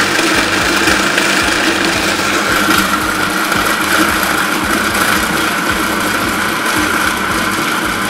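Food processor motor running steadily on low speed, its blade chopping toasted bread into crumbs.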